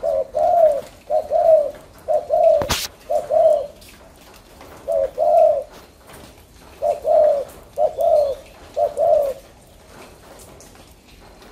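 Spotted dove cooing in a cage: a series of two-part coos, each a short note followed by a longer one, in bouts with short pauses, ending a little after nine seconds. A single sharp click just under three seconds in.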